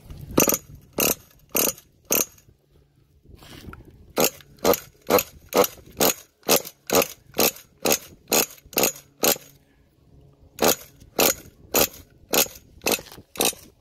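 The Losi 8 nitro truggy's engine being primed by hand: a rapid series of short, sharp strokes, about two a second, in three runs with brief pauses after about two seconds and after about nine seconds.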